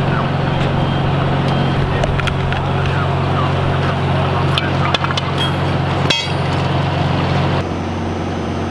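Fire engine's diesel engine running steadily with a low drone, its note changing near the end, with a few sharp clicks.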